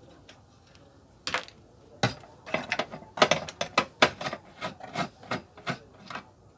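A screwdriver working screws inside a metal inverter casing: a run of sharp, irregular clicks starting about a second in, two to three a second, densest in the middle.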